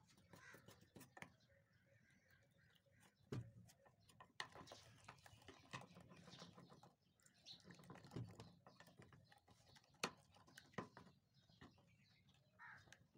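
Faint scraping and clicking of a metal spoon stirring water into a flour batter in a bowl, with scattered sharp clicks of the spoon against the bowl.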